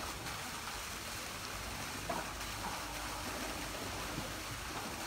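Steady rush of running and splashing water in an elephant's bathing pool, with a light knock about two seconds in.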